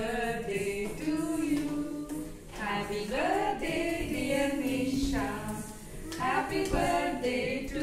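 A small group of women singing a birthday song together, unaccompanied, with long held notes.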